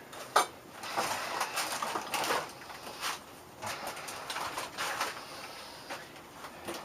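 High-voltage arc from a ballasted microwave oven transformer crackling and sputtering irregularly, with a sharp snap about half a second in.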